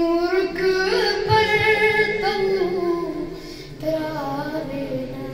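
A boy's solo voice singing a Kashmiri naat without accompaniment, in long held and gliding notes; one phrase ends about three and a half seconds in and the next begins soon after.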